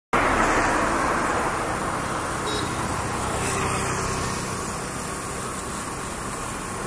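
Steady road traffic noise, a continuous rush that is loudest at the start and slowly eases off.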